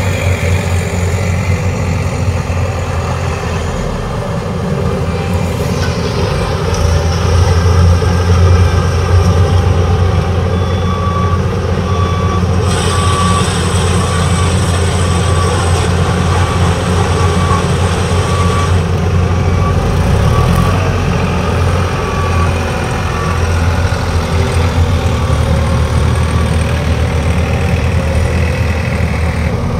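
Heavy diesel engines of a Case IH sugarcane harvester and a New Holland 3630 tractor running steadily under load while harvesting cane. From about 11 seconds in, a warning beeper sounds roughly once a second.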